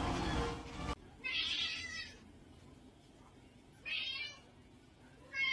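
A cat meowing three times in short, high calls spread a second or two apart, the last right at the end. Before the first meow, about a second of music and noise cuts off abruptly.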